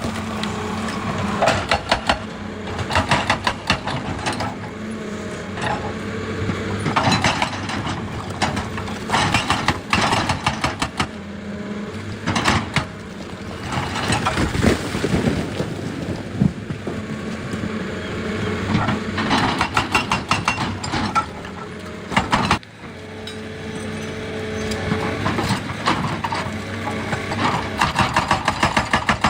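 Excavator's diesel engine running steadily while it works rock, with repeated bursts of rapid, even knocking.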